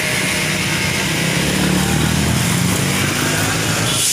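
A small engine running steadily at an even speed, with a hiss over it.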